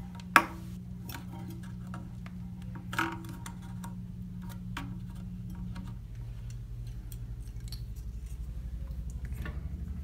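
Plastic toilet-repair parts clicking and knocking as they are handled and twisted by hand, with a sharp click about half a second in and a smaller knock about three seconds in, over a faint low hum.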